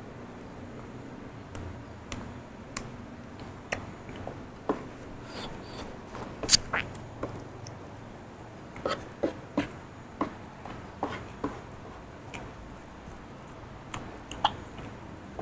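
Close-miked eating sounds: a person chewing raw vegetables and rice with crisp, irregular wet clicks and crunches, the loudest about six and a half seconds in.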